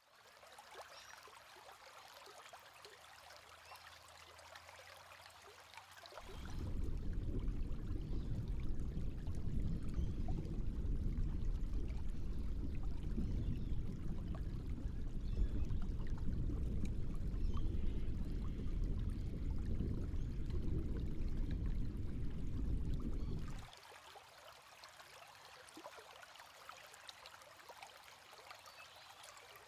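Running water: a faint trickle, then a much louder, low rushing of water from about six seconds in that lasts some seventeen seconds and stops abruptly, then the faint trickle again.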